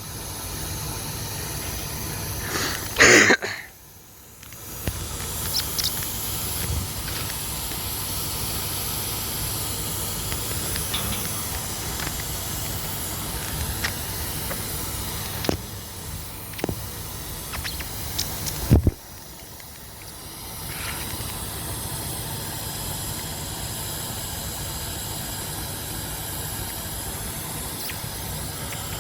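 A steady hiss with no clear source. About three seconds in comes a loud, brief sound, and a few sharp knocks follow between about 15 and 19 seconds.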